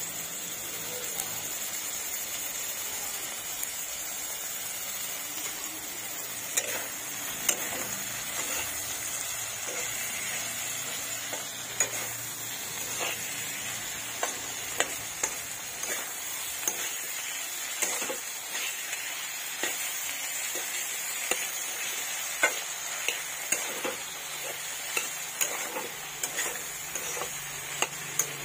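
Vegetables sizzling steadily in hot oil in a metal pan. From about six seconds in, a spatula stirring them scrapes and clicks against the pan every second or so.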